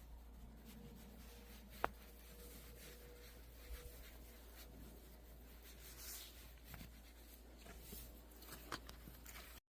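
Near silence: a faint steady low hum, with one sharp click about two seconds in and a few faint rustles later.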